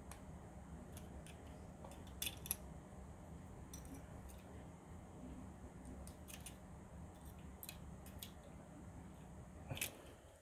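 A handful of faint, scattered clicks and taps as a reassembled iPod Nano 2nd Gen is handled and turned over in the hands, over a steady low room hum.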